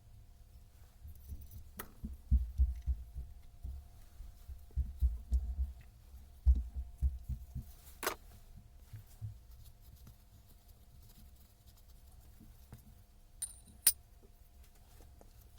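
Handling noises: a run of irregular low knocks and bumps, then a sharp click about halfway through and two more near the end, over a faint steady hum.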